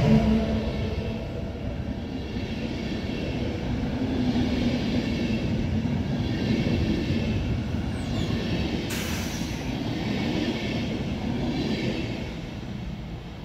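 Intercity passenger coaches rolling past, a steady rumble of wheels on rail that fades near the end as the last coach goes by.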